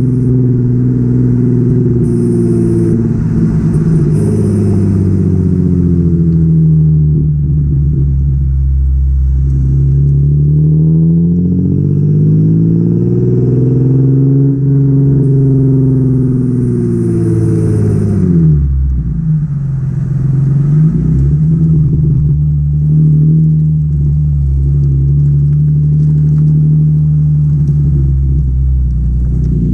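Nissan 350Z's 3.5-litre V6 exhaust, nearly straight-piped with test pipes in place of the catalytic converters, revved up and down several times and then settling to a steady idle for the last several seconds.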